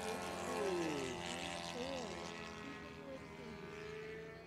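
Several RC racing planes' small engines whine at high revs in overlapping steady tones. About a second in, one drops in pitch as it passes by.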